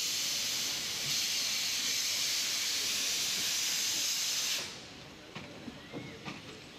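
Loud, steady hiss of steam escaping from a small steam tank locomotive, stopping suddenly about two-thirds of the way through. A few faint clicks follow.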